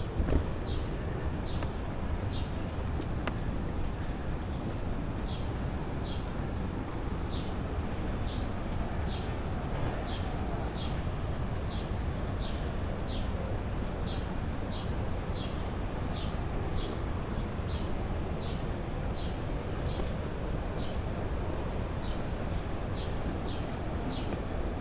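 A bird's short high chirps repeating about twice a second, over a steady low rushing noise.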